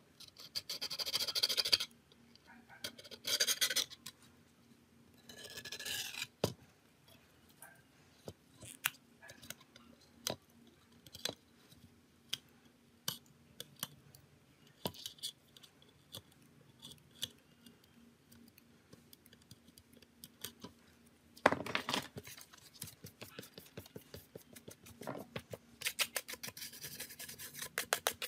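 Short bursts of scratching and scraping, about five of them, with scattered light clicks and taps in between: small hand tools working on phone parts.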